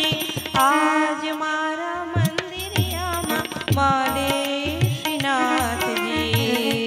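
A woman singing an Indian song with tabla accompaniment: the tabla's deep bass strokes bend in pitch under the voice, over a steady held note.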